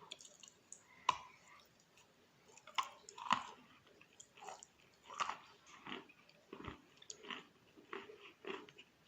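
A person biting and chewing wet Khrapovsky chalk in irregular crunches and chews. The sharpest bites come about a second in and around three seconds in, followed by softer chewing every half second or so.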